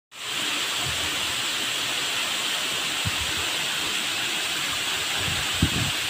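A tall waterfall rushing steadily as it pours down a rock face into a pool. A couple of brief low bumps come about three and five and a half seconds in.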